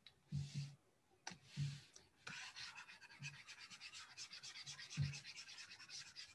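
Stylus scratching on a drawing tablet: a couple of short writing strokes, then from about two seconds in a rapid, continuous back-and-forth scrubbing as marks are erased.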